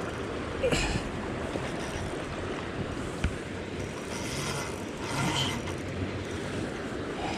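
A fishing reel working against a hooked steelhead, with a few brief mechanical patches and a sharp click, over steady wind and river noise.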